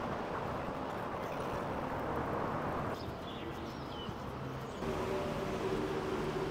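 Steady outdoor background noise with a low hum, with a few faint high chirps about three to four seconds in.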